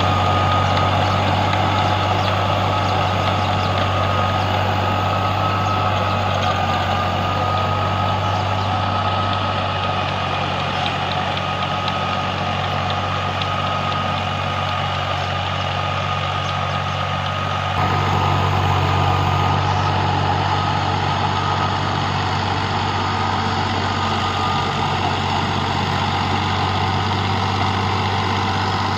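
Al Ghazi 65 HP tractor's engine running steadily, with a constant high whine over the low rumble. About eighteen seconds in, the sound steps up a little louder and fuller.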